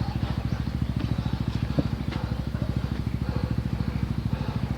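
Single-cylinder four-stroke trail bike engine idling with an even, fast low pulse, and one short knock a little under two seconds in.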